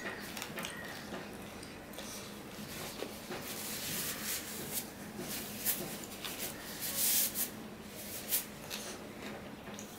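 Close-miked eating sounds: chewing and wet mouth smacks in short, irregular clicks, with the rustle of a paper tissue wiped over the face.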